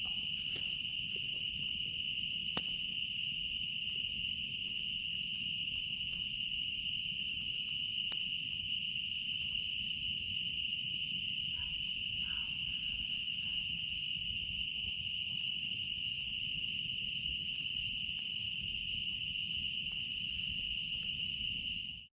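A chorus of crickets trilling steadily and without pause, over a low rumble. It stops abruptly right at the end.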